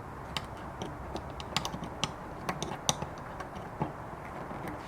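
Irregular small clicks and taps as a screwdriver tip works masking tape under a seat belt buckle's release button.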